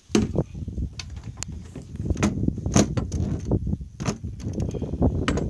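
Wind buffeting the microphone in gusts, mixed with scattered sharp clicks and knocks.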